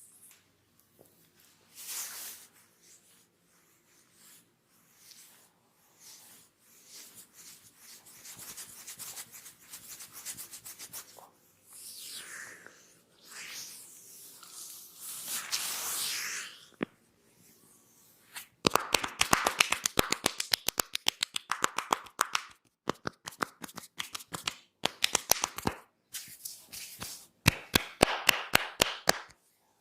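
Head massage by hand: palms and fingers rubbing and swishing over hair and skin. About two-thirds of the way in, this gives way to fast runs of sharp hand taps or snaps, several a second, with short breaks between the runs.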